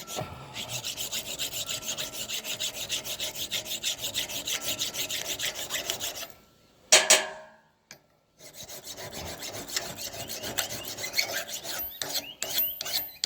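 Hand file rasping back and forth on the steel edge of a splitting axe, about three strokes a second, sharpening the bevel. The strokes pause about seven seconds in for a single loud knock, then start again.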